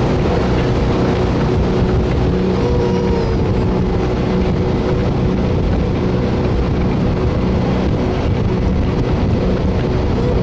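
Jet boat's engine running steadily at cruising speed, a constant drone with the hiss of water rushing past the hull, heard from on board.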